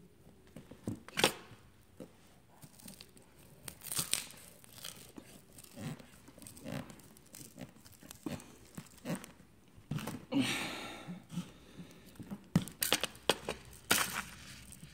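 A thread sawn back and forth under a glued MacBook Pro battery cell, cutting through the adhesive as the cell comes loose: irregular scratchy tearing with small clicks. Longer tearing stretches come about ten seconds in and again near the end.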